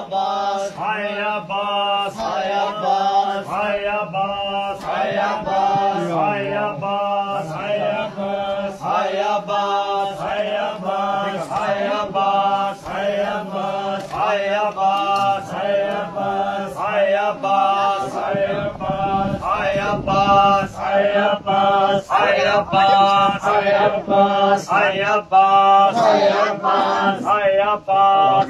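Men's voices chanting a Punjabi noha (lament) in a repeating refrain, with sharp rhythmic hand strikes on bare chests (matam) about twice a second.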